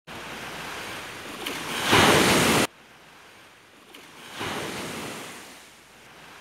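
Small waves washing up a sandy beach. A loud surge of surf about two seconds in cuts off suddenly, then a softer wave swells and fades away.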